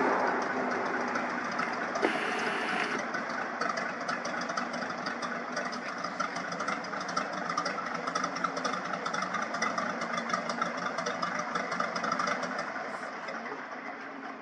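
Single-engine floatplane's piston engine and propeller running at low taxi power, a steady drone with a fine rhythmic flutter, fading toward the end as the plane taxis away across the water.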